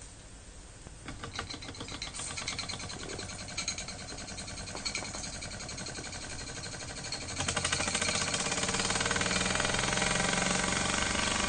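Mamod TE1a model steam tractor's single oscillating-cylinder steam engine running free on steam, a rapid even chuffing of exhaust beats. It picks up about a second in and gets faster and louder about seven seconds in.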